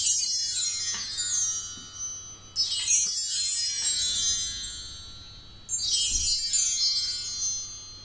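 LP bar chimes (a mark tree of hanging metal rods) swept by hand three times, each sweep a shimmering cascade running down from the high rods to the lower ones and left to ring out.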